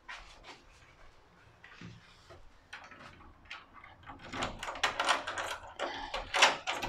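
A wooden door being handled and opened: scattered clicks and knocks, growing busier and louder over the last few seconds.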